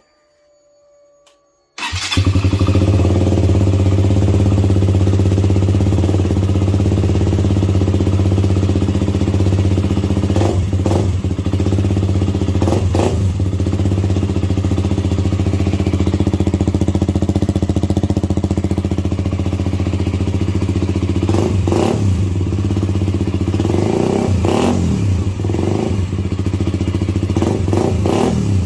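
KTM RC125's 125 cc single-cylinder four-stroke engine starting about two seconds in on its first start through a newly fitted de-catted Turbokit GP exhaust with the dB killer in, then idling steadily. It is still relatively loud, with a few brief sharp sounds in the second half.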